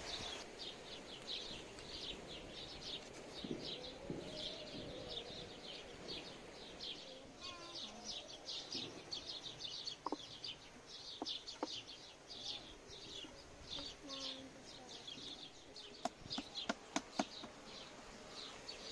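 Steady high chirping in the background, about three short chirps a second, with a few sharp taps near the end.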